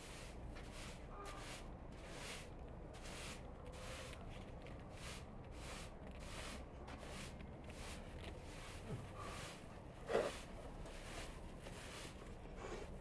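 Straw broom sweeping in steady strokes, faint, about two swishes a second. About ten seconds in, a short squeak is the loudest sound.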